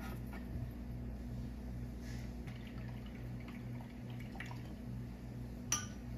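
Metal spoon stirring milk in a ceramic pitcher, with faint liquid swishing and light ticks against the sides, and one sharper clink near the end. A low steady hum runs underneath.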